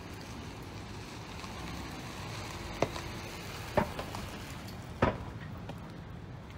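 Steady outdoor background rumble with three sharp knocks, the first a little under three seconds in and the others about a second apart.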